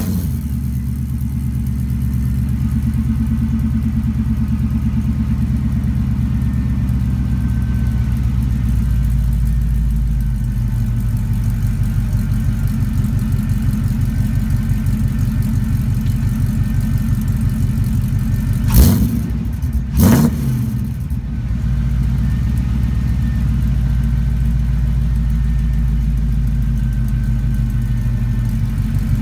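LS V8 in a 1987 Chevy K10 idling just after starting, heard through Schoenfeld long-tube headers, Magnaflow straight-through mufflers and stainless true dual exhaust. The low idle drone deepens about nine seconds in, and two brief loud bursts about a second apart break it about two-thirds of the way through. The owner can't work out why the exhaust sounds the way it does.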